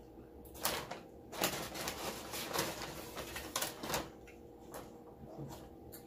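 A quick run of clicks, taps and rustles, from things being handled at close range, over about three seconds; a couple of single clicks follow.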